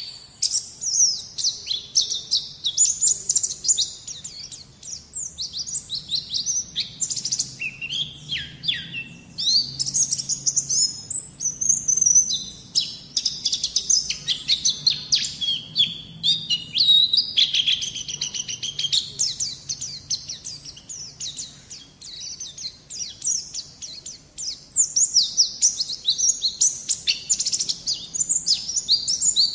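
White-eye (pleci) song: rapid, high-pitched chirps and twittering trills running on almost without pause, easing off briefly twice. It is a masteran recording used to draw song from an untrained young white-eye.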